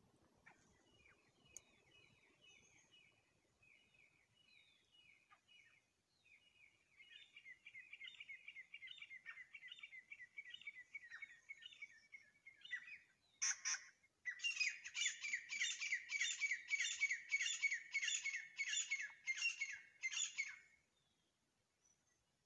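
A pair of grey francolins calling. Faint repeated calls build into a fast run of notes, then a short burst comes about 13 seconds in. A loud, regular series of about two calls a second follows and stops about 21 seconds in.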